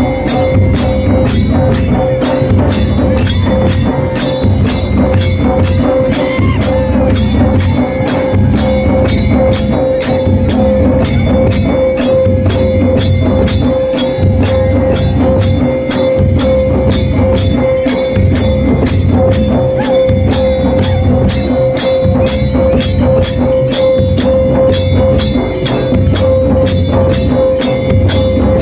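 Tribal drum beaten loudly in a steady, fast rhythm of about two strokes a second, with deep booming beats, played with another instrument holding a single unbroken high note.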